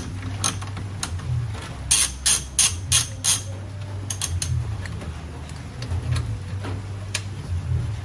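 Socket ratchet wrench clicking as it turns a bolt on a car's front radiator support, in quick runs of sharp clicks that come thickest a couple of seconds in.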